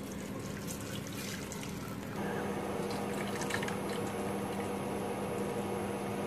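Hot cabbage cooking water poured from a steel pot through a perforated steel colander into a bowl, splashing and dripping as the cooked cabbage is strained. A steady low hum runs underneath.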